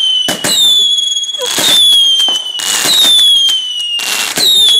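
Whistling firework shots launched one after another, about one a second. Each is a bang followed by a high whistle that slides down in pitch.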